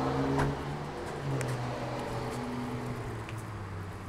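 Lamborghini Gallardo's V10 engine idling steadily, with a couple of short clicks about half a second and a second and a half in.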